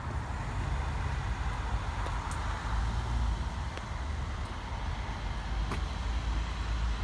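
Steady rumble of road traffic, with a few faint clicks.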